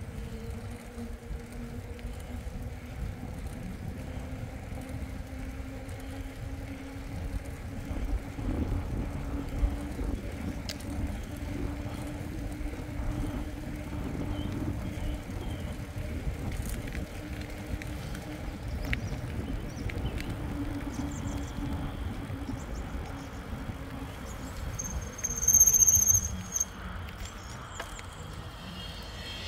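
A mountain bike rolling on pavement: its knobby tyres give a steady hum, with low wind and road rumble. A brief, loud, high-pitched squeal comes near the end.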